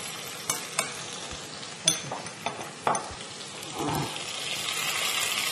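Food sizzling as it fries in a skillet while being stirred, with several sharp clicks of the spoon against the pan in the first few seconds; the sizzle grows louder in the last second or so.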